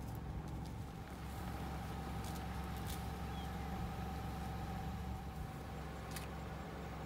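Car engine idling steadily, a low hum with a faint higher tone, and a few light ticks.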